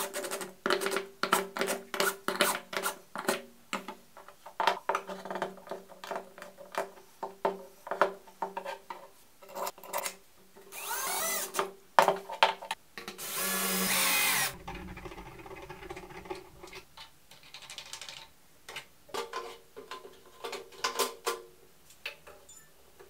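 Cordless drill/driver driving machine screws into a 3D-printed plastic block in short bursts, with rapid clicking for the first few seconds and a couple of longer loud runs midway. Later, scattered clicks and taps of parts handled on the bench.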